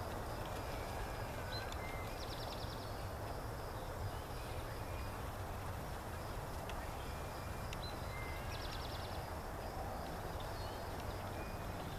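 Meadow ambience: a steady low noise with a thin high insect drone, and twice, about six seconds apart, a small bird's short song ending in a fast high trill.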